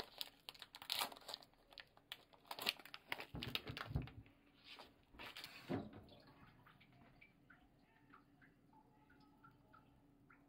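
Plastic wrapping crinkling, with light clicks as blocks of kiri-mochi are unwrapped and set into a glass bowl. The handling is busiest in the first six seconds, then thins out to faint small ticks.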